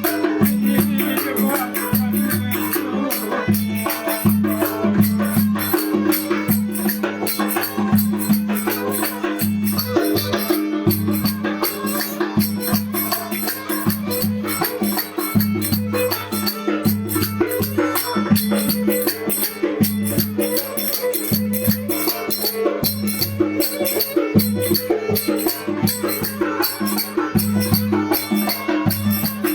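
Lively dance music with a fast, steady rattling beat over sustained low tones and drums.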